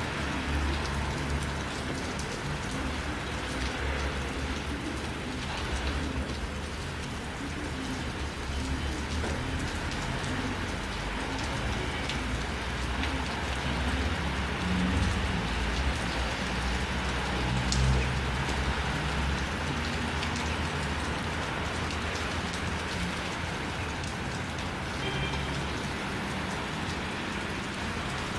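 Steady hiss of wet snow mixed with rain falling onto a wet street and nearby surfaces, with a low rumble underneath.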